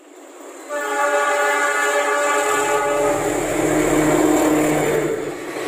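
Diesel locomotive sounding a long horn blast about a second in, held for about two seconds and then trailing off, with the low rumble of its engine growing as it approaches.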